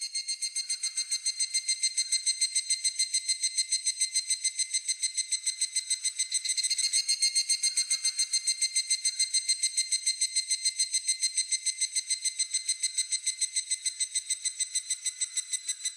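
Higurashi (evening cicada) singing its long call: a high, rapid, evenly pulsed trill that holds steady in pitch.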